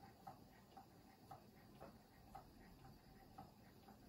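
Stuart Turner 'Williamson' model vertical steam engine ticking over slowly: a faint, even tick about twice a second, with softer ticks in between.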